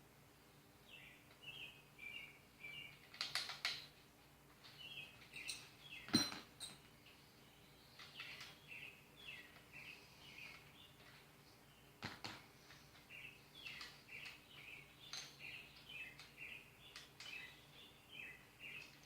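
Small birds chirping in repeated short phrases. A few sharp clicks and knocks come through, from the Allen-key work on the bike. The loudest knock is about six seconds in.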